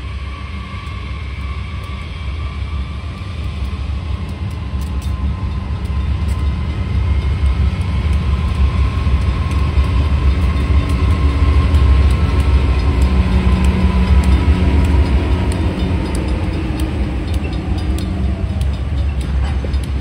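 Two GE Dash 8 diesel-electric locomotives rumbling past at close range, followed by freight cars rolling by with faint wheel clicks. The heavy engine rumble grows louder until the second unit passes, about halfway through, then eases slightly.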